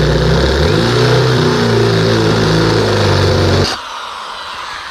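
Electric drill with a large bit boring a hole in metal, the motor running loud and labouring under load, then the trigger released about three and a half seconds in and the motor spinning down.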